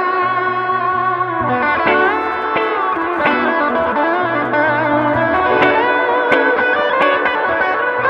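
Epiphone Studio Dot semi-hollow electric guitar overdriven by a Mojo Hand FX Magpie pedal through a Two-Rock Studio Pro 22 combo, playing a lead of sustained, bent and wavering notes. Underneath runs a looped backing guitar part from a Boss RC-3 looper, repeating about every four seconds.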